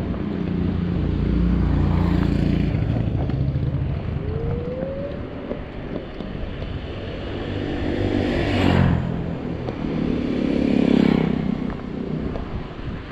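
Riding noise on a Zero 9 electric scooter: wind rumbling on a chest-mounted microphone along with road and tyre noise. It swells louder twice, about eight and eleven seconds in.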